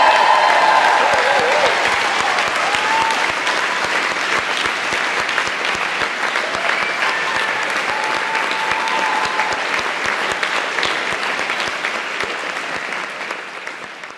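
Audience applauding, with a few cheering shouts, fading out near the end.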